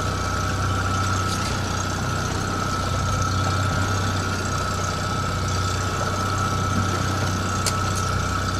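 Boat engine running steadily, a low hum with a steady whine above it.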